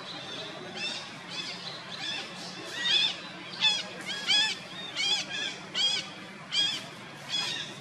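Baby macaque crying: a string of about ten high, arched calls, one every two-thirds of a second, growing louder a few seconds in.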